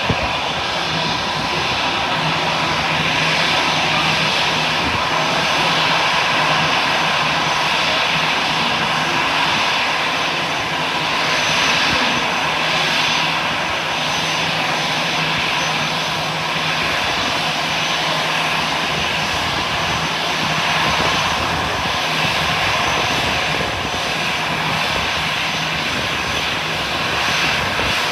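Aircraft engines running steadily: a continuous loud rushing noise, with a faint low hum that comes and goes.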